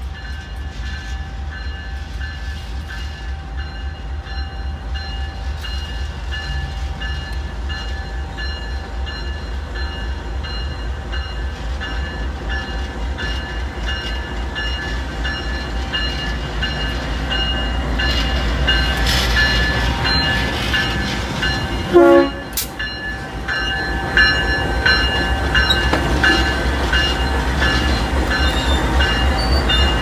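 GE Dash-9 diesel-electric locomotive running as it approaches and passes close by, its deep engine rumble and a steady faint whine growing gradually louder. A single sharp bang about 22 seconds in.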